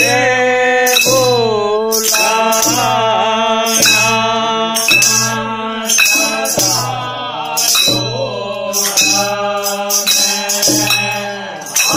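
A group of men singing a Holi song together, backed by a dholak drum and jingling percussion that keep a steady beat of about one stroke a second.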